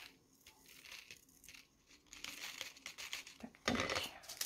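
Small clear plastic zip-lock bag crinkling as it is handled and leftover diamond-painting drills are tipped into it from a plastic tray. The rustle thickens after about two seconds and is loudest near the end.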